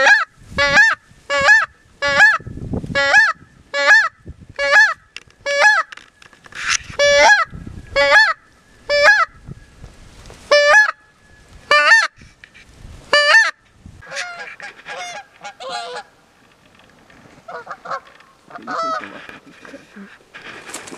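Hand-held goose call blown in a rhythmic series of loud, clipped honks, about one and a half a second for the first ten seconds, then three spaced-out honks, calling to lure geese in to the decoys. Fainter, softer honks and clucks follow near the end.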